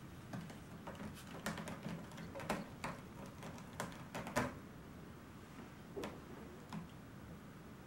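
Bengal kitten playing at a carpeted cat tree with sisal posts: an irregular run of quick taps, scratches and rustles from its paws and claws, loudest partway through, then two single taps a little later.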